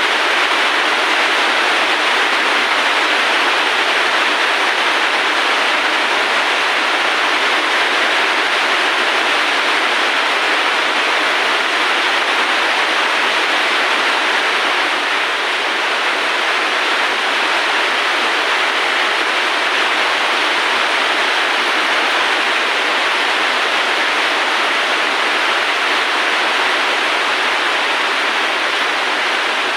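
A steady, even rushing noise with no breaks or rhythm, mostly in the middle range of pitch.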